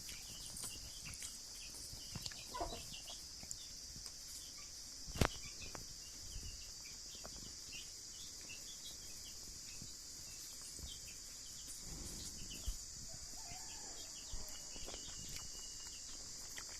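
Steady high insect drone, with faint scattered chirps, one sharp click about five seconds in and a faint animal call about three-quarters of the way through.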